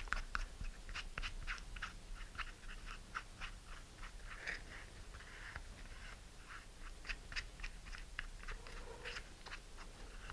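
Wooden stir stick mixing thick two-part 5-minute epoxy in a small paper cup: quiet, irregular sticky clicks and scrapes, several a second, as the stick drags through the glue and against the cup wall.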